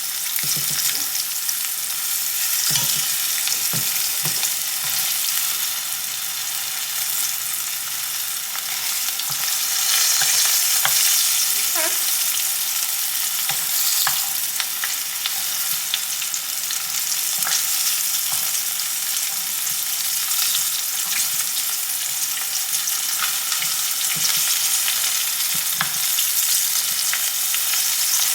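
Battered asparagus spears deep-frying in hot oil in a frying pan, a steady loud sizzle with constant crackling pops. A few soft knocks near the start as the spears are turned over.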